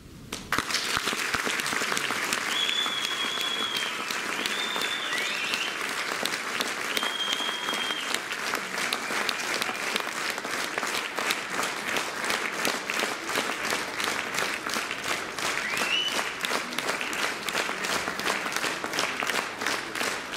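A concert audience applauding after a brass band piece, with a few short whistles near the start. About halfway through, the clapping turns into rhythmic clapping in time.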